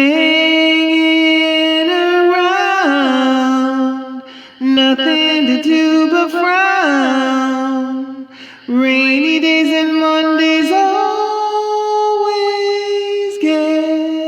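A woman singing long held notes with gliding pitch changes, unaccompanied, in three phrases with short breaks about four and a half and eight and a half seconds in.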